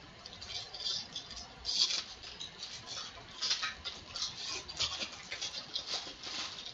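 Foil wrapper of a 2017 Topps Series 1 baseball card pack crinkling and tearing as it is ripped open by hand: an irregular run of sharp crackles.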